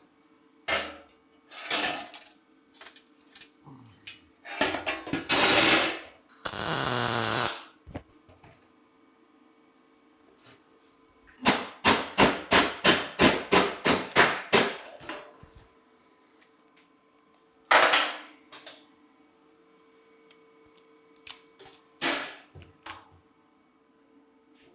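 Steel strip being worked around a curve by hand: scattered metal clanks, then a quick run of about ten strikes, roughly three a second, a little past the middle.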